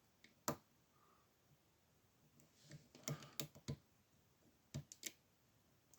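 Sparse, sharp little clicks of a lock pick and tension wrench working the pins inside a small brass tri-circle padlock: one click about half a second in, a quick cluster around three seconds, and two more near the end.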